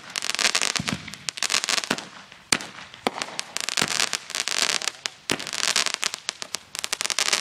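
Small consumer aerial firework firing shot after shot, about one every second and a half. Each shot is a hiss thick with crackling pops, and a few single sharper bangs fall between them.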